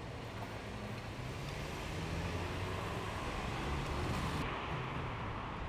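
Steady street noise: a low engine hum under a hiss. The hiss drops away about four and a half seconds in.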